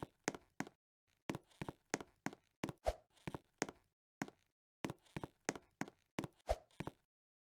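Footsteps: a quick series of sharp steps, about three a second, with two short pauses.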